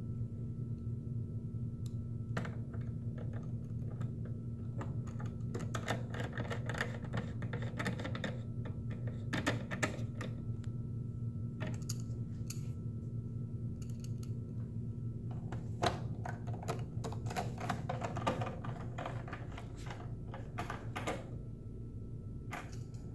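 Hand screwdriver driving small screws into push pins and rubber grommets in a motorcycle's plastic tail cowl: scattered small clicks and scrapes, thickest a few seconds in and again past the middle, over a steady low hum.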